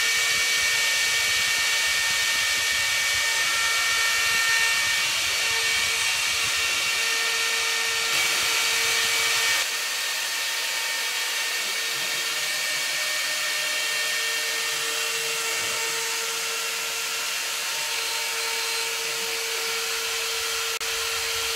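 CNC router spindle running and its cutter milling a wooden pattern during a finishing pass: a steady machine whine over a high hiss of cutting, stepping down slightly in level about ten seconds in.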